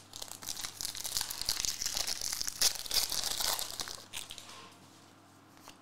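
Foil wrapper of a Topps Formula 1 trading-card pack being torn open and crinkled: a dense, crisp crackling that dies away about four and a half seconds in.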